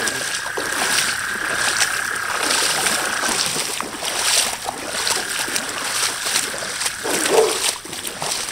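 Feet wading through shallow floodwater, splashing in a regular stride about once or twice a second. A thin steady high tone sounds behind it for the first few seconds and again near the end.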